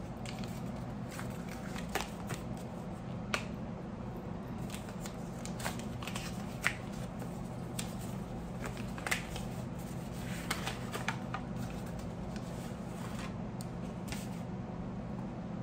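White paper wrapping being unfolded and handled, with scattered crinkles and light clicks and a small box being handled. A faint steady low hum runs underneath.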